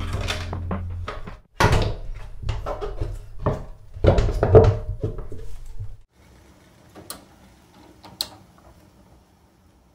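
Background music ending about a second in, then a run of knocks and clunks of household things being moved and set down in a small room, the loudest at about 1.5 s and about 4 s in. Two faint clicks follow near the end.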